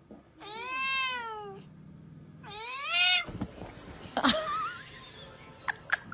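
A cat meowing twice, each meow about a second long, rising and then falling in pitch. A short fainter sound follows about four seconds in.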